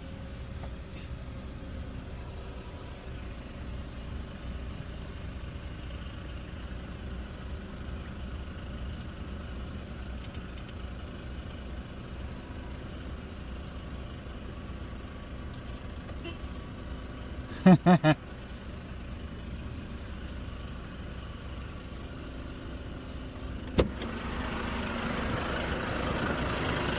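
A road vehicle driving, heard from inside the cab: a steady low engine and road rumble. About two-thirds of the way in come three short, loud pitched blips. A sharp click follows a few seconds later, and the road noise then grows louder near the end.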